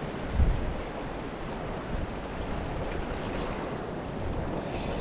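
Steady wind and sea surf against a rocky shore, with wind buffeting the microphone and a brief low thump about half a second in.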